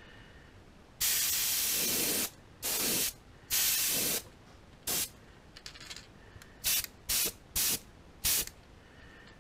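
Airbrush spraying paint onto a crankbait lure in separate bursts of air hiss: one long burst lasting about a second near the start, then several shorter bursts and quick puffs.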